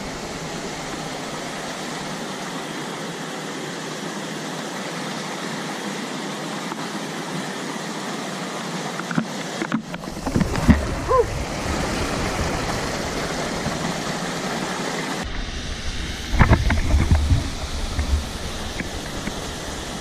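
Mountain stream water rushing over rocks, a steady hiss, with a few louder thumps and rumbles about halfway through and again near the end.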